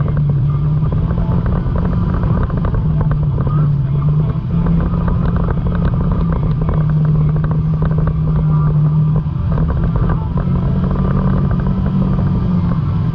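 Side-by-side off-road vehicle's engine running under way on a rough dirt trail, a steady drone whose pitch steps up and down several times as the throttle changes, over constant rattling and knocking from the bumpy ground.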